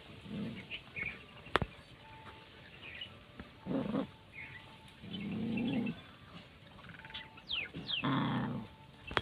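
Puppies growling at each other over food: several short, low growls, the longest about five and eight seconds in. A sharp click about a second and a half in and a couple of quick bird chirps near the end.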